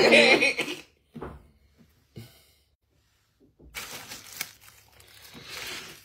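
A man's voice trailing off in the first second, then two soft knocks, and from about four seconds in the rustling and clicking of a plastic cutlery wrapper being handled.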